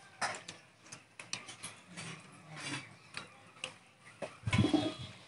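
Irregular small clicks and smacks of several people eating rice by hand off banana leaves, with a brief louder sound about four and a half seconds in.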